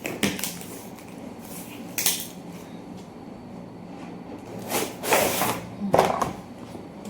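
An item being unpacked and handled by hand: a few scattered rustles, scrapes and knocks of packaging and plastic, the loudest two near the end. A faint steady low hum runs underneath.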